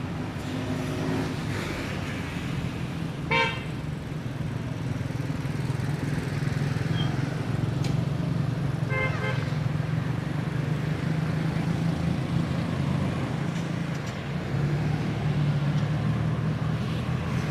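Steady low rumble of road traffic, with a short car-horn toot about three seconds in and a fainter toot about nine seconds in.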